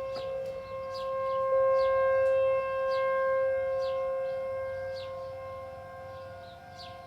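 Outdoor tornado warning siren sounding a steady tone during its scheduled test, holding one pitch while it swells louder and then fades again.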